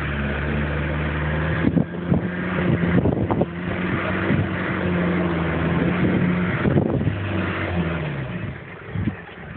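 Land Rover Discovery's engine running at low, steady revs as the 4x4 crawls slowly over a steep earth mound off-road, with a few knocks in the first few seconds. The engine note falls away near the end.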